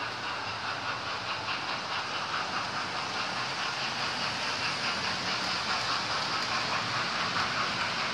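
Model railway trains running on the layout: a steady whirr of small electric motors and wheels rolling over the track, with faint clicking from the rail joints.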